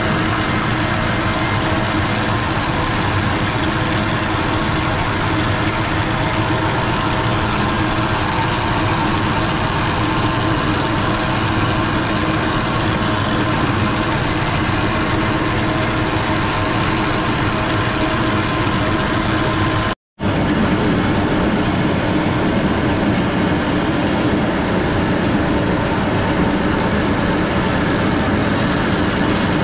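Tractor engine running steadily at a constant speed. It drops out to silence for a split second about twenty seconds in, then carries on the same.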